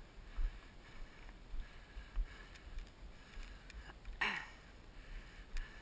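Heavy, labored breathing of a tired runner climbing a grassy slope, over irregular low thumps of footfalls jostling the body-worn camera. About four seconds in comes one loud voiced exhale that falls in pitch.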